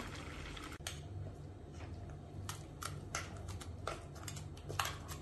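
Faint clicks and short scrapes of a spoon against a bowl as ground coconut paste is scraped into an earthenware cooking pot, over a low steady hum.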